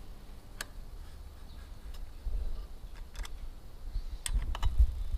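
Allen wrench working the small bolts of an aluminium windscreen as they are snugged down: a few scattered sharp metal clicks, with low handling bumps that grow louder near the end.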